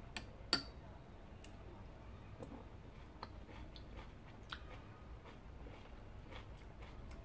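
Quiet chewing while eating by hand, with faint scattered clicks and taps from fingers and a spoon on the plates and bowl; the loudest is a sharp click about half a second in.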